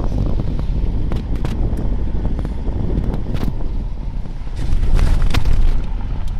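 Car driving on an unpaved gravel road: a steady low rumble of engine and tyres with wind buffeting the microphone at the window. A few sharp knocks and clicks cut through, and it gets louder for about a second near the middle-end.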